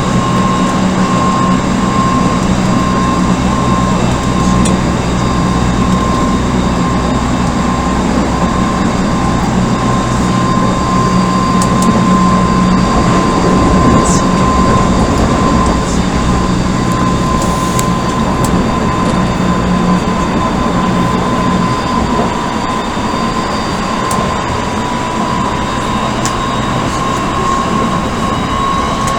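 Odakyu 1000 series electric train with Mitsubishi GTO inverter drive, running at speed and heard from inside a passenger car: a steady rumble of motors and wheels on rail with a constant high whine. A lower hum fades out about two-thirds of the way through.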